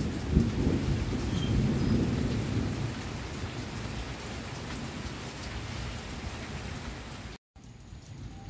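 Thunder rumbling over heavy rain, the rumble dying away over the first few seconds while the rain keeps falling steadily. Near the end the sound cuts out briefly and comes back quieter.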